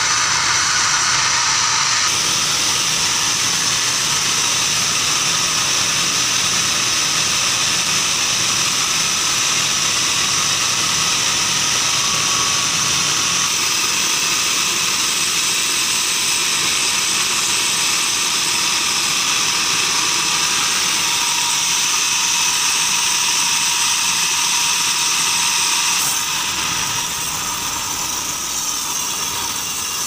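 Sawmill bandsaw headrig running steadily, a loud machine drone with a high whine from the blade; it gets a little quieter about four seconds before the end.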